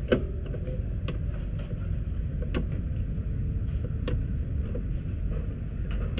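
Folding passenger footpeg on an FKM scooter being worked by hand, giving a few sharp clicks: the strongest just as it starts, then single clicks about every one to one and a half seconds. A steady low rumble runs underneath.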